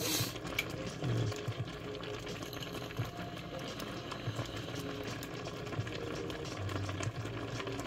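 Water boiling in a stainless steel pot with instant noodles cooking in it, a steady bubbling.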